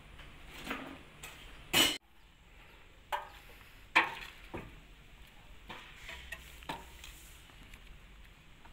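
Scattered metal clanks and knocks as a dented steel excavator body panel is handled and fitted onto the machine. There are about seven separate knocks, and the loudest comes about two seconds in and cuts off suddenly.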